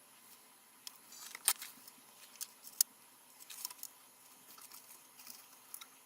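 Faint, irregular clicks and light scrapes of small parts being handled, with the two sharpest ticks about a second and a half and nearly three seconds in.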